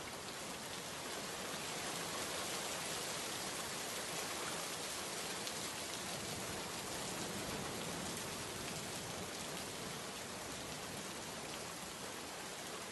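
Heavy rain pouring down steadily: a dense, even hiss of rain falling on the ground and surfaces.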